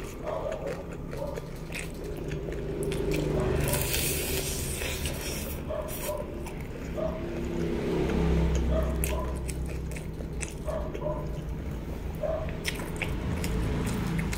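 Close-miked chewing of battered fried chicken wing, with small mouth clicks at an uneven rhythm of roughly one or two a second and a few sharper clicks.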